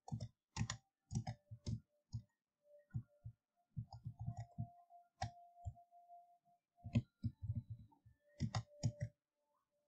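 Computer mouse clicking: short, irregular clicks, often in small quick clusters.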